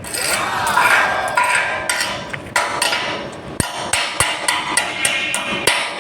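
Irregular hammer taps on steel, two or three a second, over background music.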